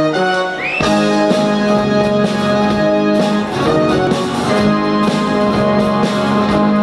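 Live band music: the instrumental opening of a pop song, with sustained chords and a few struck accents.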